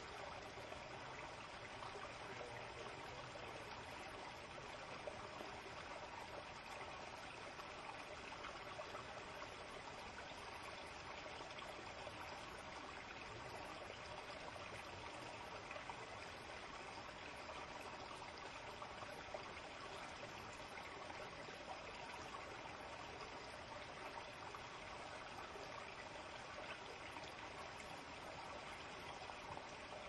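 Shallow forest stream flowing over rocks, a steady, unbroken trickle and rush of water.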